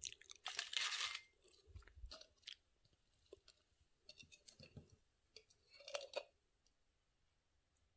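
Lay's Paprika potato chips crunching and crackling in a run of short sharp crunches, loudest about a second in, then sparser, dying away after about six seconds.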